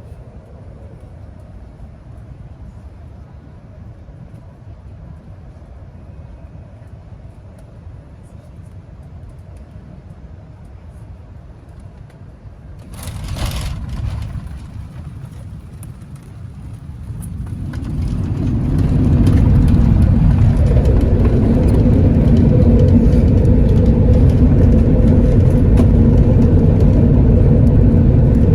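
Airbus A380 landing, heard inside the upper-deck cabin: steady cabin rumble on final approach, then about halfway through a short burst of noise as the wheels touch down. A few seconds later the engines' reverse thrust and braking build to a much louder, steady rushing noise with a low drone that holds to the end.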